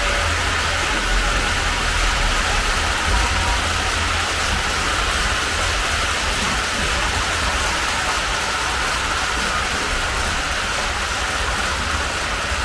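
H0-scale model trains running on the layout's track: a steady rushing noise with a low rumble underneath.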